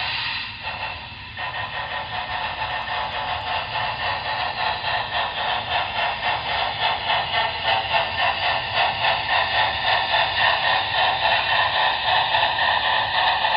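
Sound decoder of a Broadway Limited Imports Big Boy model steam locomotive playing steam exhaust chuffs through its small onboard speaker as the model runs in reverse, a steady rhythm of about three chuffs a second. The sound dips briefly about a second in.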